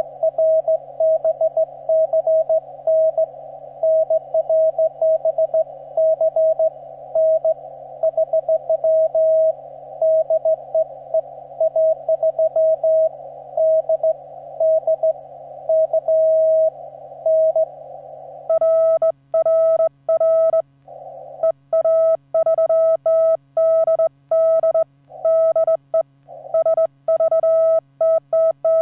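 Morse code on a ham radio transceiver: a steady tone keyed on and off over a narrow band of hiss through the set's CW filter, as a station is received. After about eighteen seconds the hiss drops away and a cleaner tone is keyed by hand on a straight key, the transceiver's sidetone as the operator sends.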